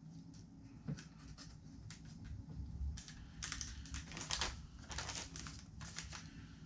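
Plastic packaging of soft plastic fishing baits rustling and crinkling as it is handled. There are a few light clicks at first, and the crinkling grows denser from about halfway through.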